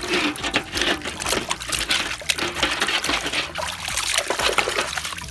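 Water trickling and splashing, with many small irregular splashes, as muddy toy cars are rinsed.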